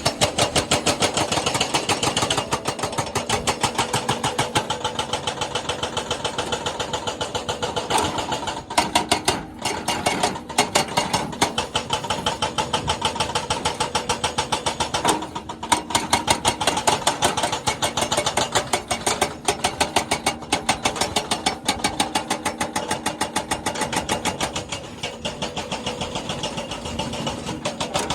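Jackhammer hammering at a rapid, even rate, with short pauses about nine and fifteen seconds in.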